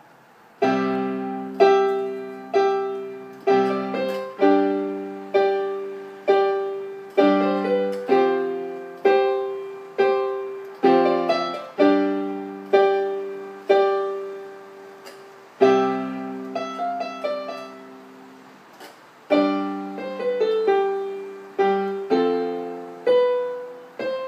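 Slow solo piano ballad: chords struck about once a second, each left to ring and fade, with one chord held for a few seconds about two-thirds of the way through before the playing picks up again.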